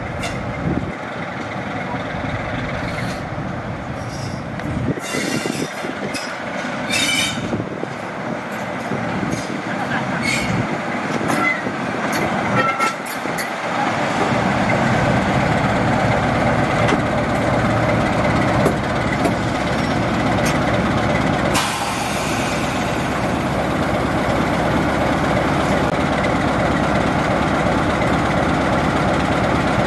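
Class 47 diesel locomotive D1842 running into the platform, its Sulzer twelve-cylinder engine getting louder about halfway through as it draws alongside, then running steadily. A brief hiss of air about two-thirds of the way in.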